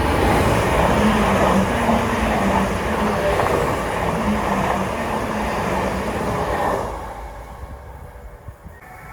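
A train running past on the track: loud, steady wheel-and-rail noise with a faint low hum, dying away about seven seconds in.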